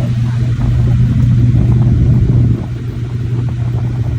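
Air conditioning unit running with a steady low hum, a little louder between about one and two and a half seconds in.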